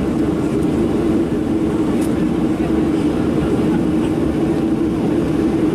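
Steady cabin hum inside a Boeing 737-700 as it rolls slowly on the ground, heard from a seat over the wing; the noise stays even throughout, with no changes in pitch or loudness.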